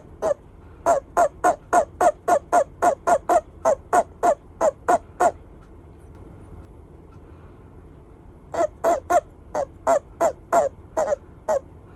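Toad giving its release call: a rapid series of short chirps, about four a second, in two bouts with a pause of about three seconds between them. This is the call a toad makes when it is grasped or clasped, signalling to be let go.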